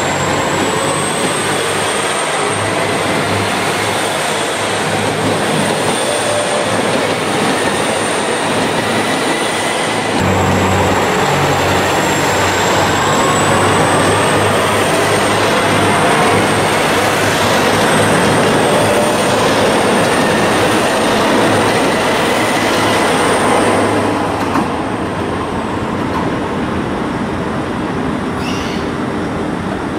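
KiHa 261 series diesel express train running past on the adjacent track, its diesel engines working and wheels rolling on the rails in a steady din. The noise drops about 24 seconds in as the train draws away.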